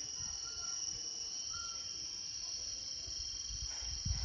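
A chorus of night insects keeps up a steady, high-pitched shrill drone. Low rumbles on the microphone swell briefly near the end.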